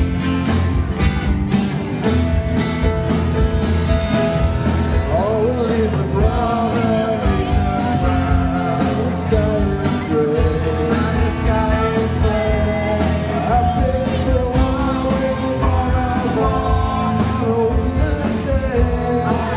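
Live amplified rock band playing, with drums and guitar, and a singer coming in about five seconds in.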